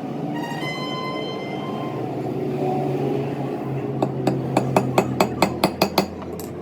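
A piece of metal rings briefly after a knock, then a hammer taps metal in a quick run of about ten blows, roughly five a second, over a steady low hum in the workshop.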